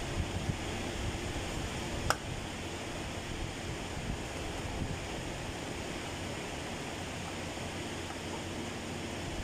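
Steady low rumble and hiss of background noise with a faint steady hum, and a single sharp click about two seconds in.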